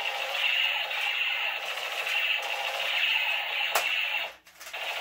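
Light-up battery toy gun playing its electronic sound effect through a small speaker: a pulsing tone that swells and fades about every three-quarters of a second. A click a little before the end, then the sound cuts out briefly and starts again.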